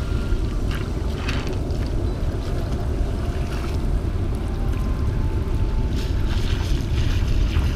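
Wind buffeting the microphone, a steady low rumble, over shallow river water at the shore; brief hissing splashes about a second in and again near the end as the wet cast-net line is hauled in.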